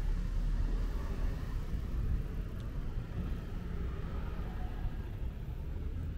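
Outdoor street ambience with a steady low rumble.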